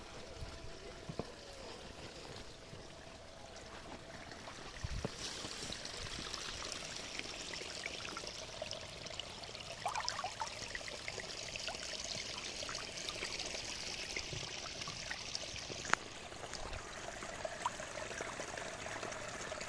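Water trickling and splashing down the small rock cascades of a garden pond stream, fed by a solar-powered pump; the flow grows louder and brighter about five seconds in. Around halfway a hand stirs the pond water with a few small splashes, and a single sharp click comes near the end.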